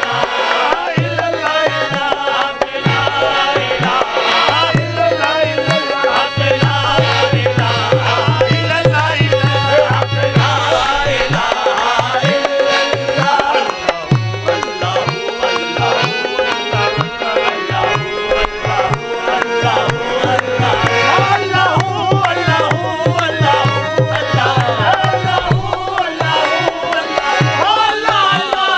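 Qawwali music: a hand drum keeps a fast, steady beat under a sung melody. The drumming drops out briefly in a few places.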